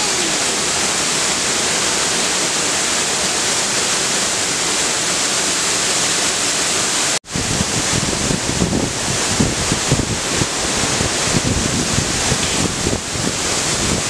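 Steady rushing of a tall waterfall pouring onto rocks. About seven seconds in the sound cuts out for an instant, and after that an uneven low buffeting on the microphone joins it.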